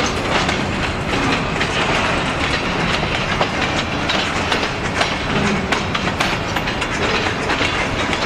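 Freight train cars, boxcars and covered hoppers, rolling past at close range: a steady rumble of steel wheels on rail, with frequent sharp clicks.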